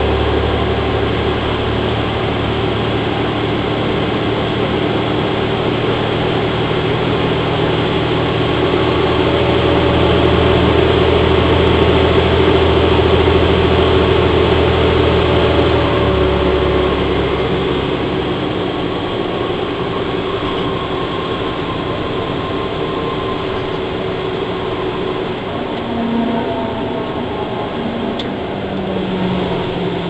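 Orion VII NG transit bus under way, its Cummins ISL diesel engine pulling steadily over road and running noise. About halfway through, the low engine note drops away suddenly, leaving mostly road noise.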